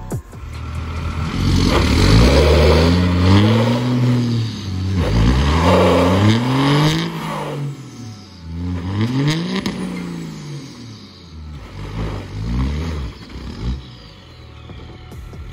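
A vehicle engine revving up and falling back again and again: four long rises in the first ten seconds, then shorter, quicker ones.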